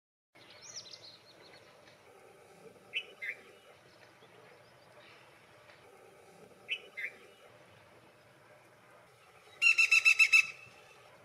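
Black-rumped flameback woodpecker calling: two pairs of short sharp notes, then, about nine and a half seconds in, a loud fast rattle of about eight notes in under a second.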